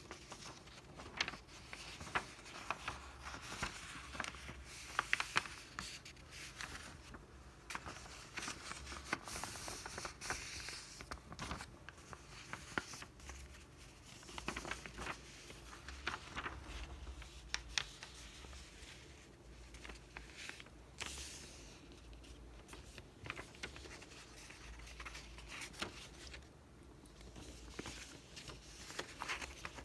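A sheet of paper being folded by hand into a paper airplane: irregular rustling and scraping as it is moved and creased, with many short sharp crinkles.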